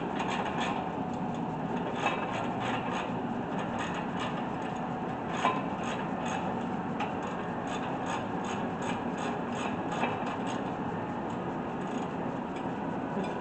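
Hand ratchet clicking in uneven runs as a tight brake caliper bolt is backed out by hand, with a few louder clicks along the way.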